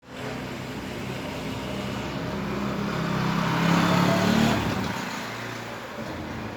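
Honda CB400 Super Four Hyper VTEC Spec 1's inline four-cylinder engine running, its note swelling to its loudest about four seconds in, then easing back to a steady run.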